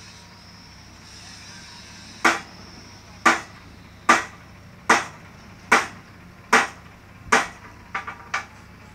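Hammer blows on metal: seven sharp, evenly spaced strikes a little under a second apart, then a quicker run of three lighter taps near the end.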